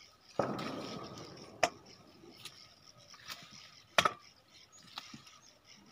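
Lemons being picked by hand from a lemon tree: branches and leaves rustle, with a few sharp clicks or knocks, the loudest about four seconds in.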